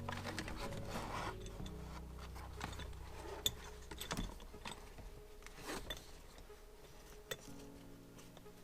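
Soft background music with held low notes, over scattered light clicks and rubbing of plastic trim and seatbelt parts being handled.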